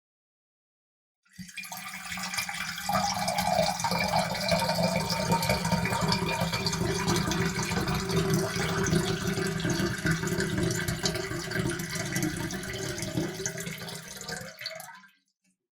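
Water poured steadily into a cup, starting about a second in and running for about thirteen seconds before trailing off and stopping.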